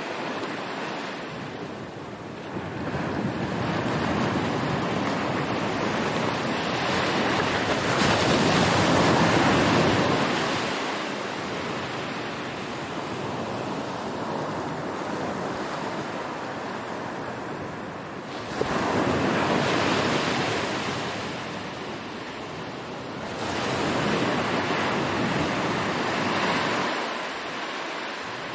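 Sea waves washing in: a steady rush of surf that swells and fades three times, the first surge the longest.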